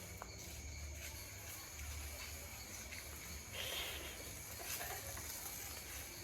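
Quiet outdoor night ambience: a steady high chirring of insects such as crickets over a faint low rumble, with a brief soft hiss about three and a half seconds in.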